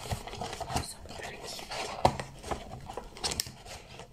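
Close-miked ASMR handling sounds from hands working right at the microphone: irregular light clicks, taps and scratchy rubs, with one sharper click about two seconds in.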